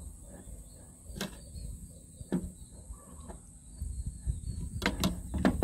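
Light clicks and scrapes of a spoon and fingers on ceramic plates as marinated dove meat is moved into flour and coated, a few separate taps at first and busier handling near the end, over a low steady rumble.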